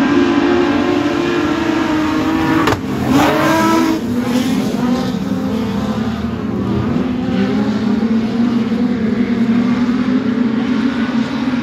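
Production sedan race cars running on a speedway, engines revving up and down as they lap, with a sharp surge in revs about three seconds in.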